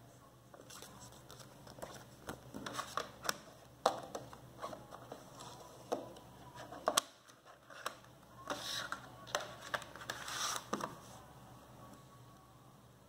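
A plastic CD jewel case and its paper booklet being handled. Scattered plastic clicks and taps and paper rustling and scraping, with two sharp clicks about four and seven seconds in.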